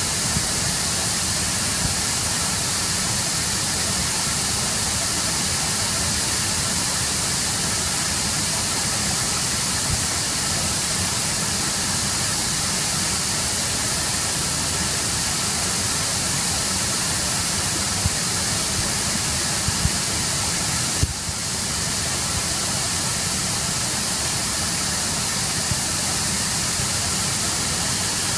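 Steady, unbroken rush of a waterfall pouring into a river. The sound dips briefly about three quarters of the way through, just after a few faint knocks.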